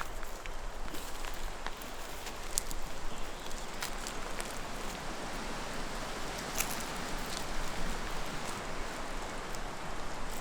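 Wind rustling through leaves and brush, a steady hiss with a few faint ticks and snaps.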